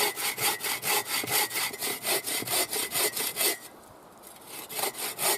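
Boreal 21 hand saw cutting through a thick log in quick, even back-and-forth strokes, about four or five a second. The sawing stops about three and a half seconds in, then starts again after a short pause, as each cut is taken part-way through before moving on.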